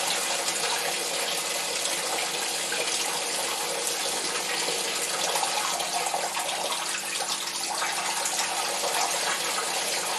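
Blackberry wine must pouring in a steady stream from a plastic bucket into a draining bag and colander over a plastic fermentation bucket.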